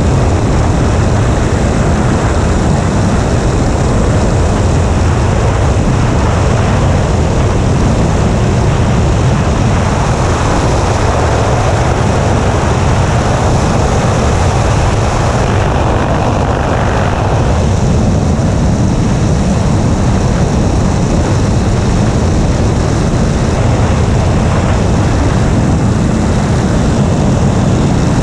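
PC-9 turboprop engine and propeller running steadily in flight, with heavy wind rush over a wing-mounted camera. The sound brightens for a stretch midway through.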